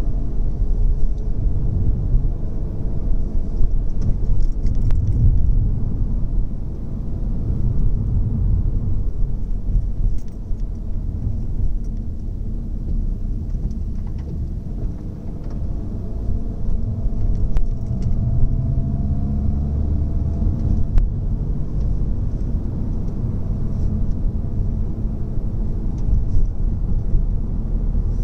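Seat Leon driving along: a steady low rumble of road and engine noise, with a faint engine tone that drifts gently in pitch.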